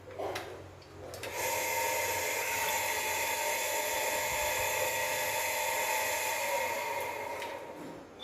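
A small high-speed electric motor whines steadily for about six seconds, starting about a second in. Its pitch sags slightly near the end as it winds down.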